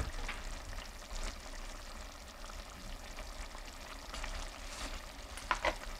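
Ground beef and tomato sauce sizzling and crackling faintly in a pot on a gas burner, with a couple of light clicks near the end.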